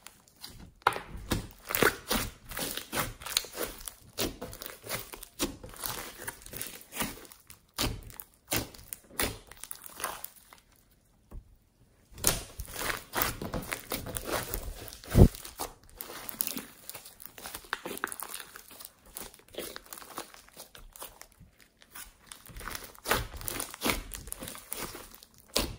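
Hands squeezing, pressing and stretching a thick slime mixed with foam beads: a dense run of short sticky pops and crackles. It stops for about a second and a half a little before the middle, and there is one loud thump a little past halfway.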